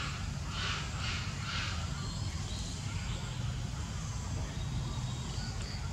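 Outdoor background with a steady low rumble. A few soft rustling sounds come in the first two seconds, and a short high thin tone sounds near the end.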